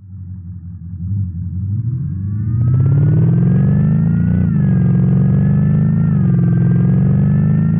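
Maxhaust electronic active-sound generator playing its 'Muscle #4' synthesized V8 exhaust note. It starts low and quiet, grows louder and climbs in pitch over the first few seconds, peaks about four seconds in and eases back. A smaller rise and dip come near six seconds, then it climbs slowly again.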